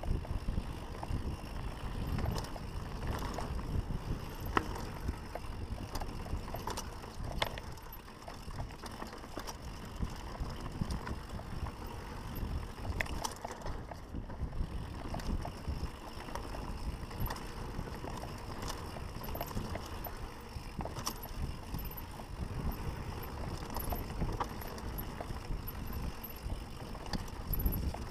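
Mountain bike riding fast downhill on a dirt singletrack: a steady rumble from the ride over the trail, with frequent sharp clicks and rattles from the bike.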